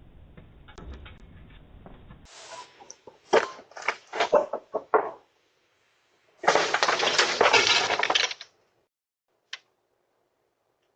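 A quick run of sharp clinking knocks, then about two seconds of harsh crashing noise, like something breaking.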